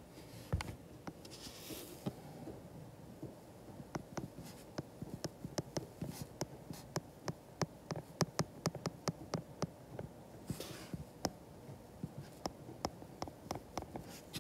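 Stylus tapping and ticking on a tablet's glass screen during handwriting: a quick, irregular run of small clicks in bursts, as each letter is written.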